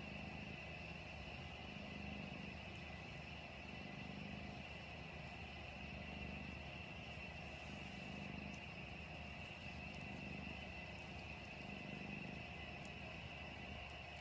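Domestic cat purring softly: a low, even rumble that swells and eases with each breath, about every second and a half.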